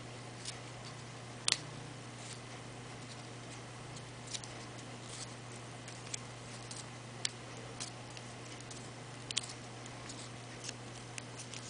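Faint, irregular clicks and ticks of metal tweezers gripping and bending the stiff petals of a rolled paper flower, the loudest about one and a half seconds in, over a steady low hum.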